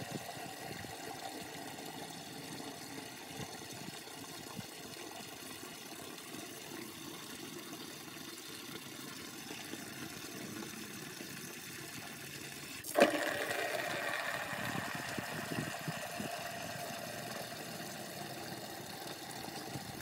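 Water from an outdoor tap running at full flow, a steady splashing rush. About thirteen seconds in there is a sharp knock, and after it the rush is louder, as a plastic bucket is handled under the stream.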